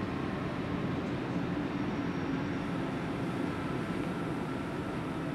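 ÖBB Taurus electric locomotive running light at low speed: a steady drone with a couple of faint held tones over it.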